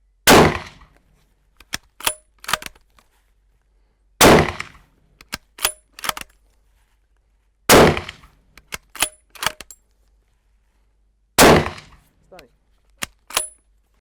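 Haenel Jaeger 10 Pro bolt-action rifle in .30-06 fired four times, one shot every three to four seconds. After each shot comes a quick run of quieter metallic clicks with a short ring: the bolt being worked to eject the case and chamber the next round.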